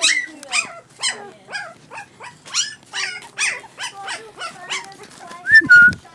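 Young puppies yapping and yelping, short high cries that fall in pitch, about two a second. Near the end a loud bumping and a short high note cut in.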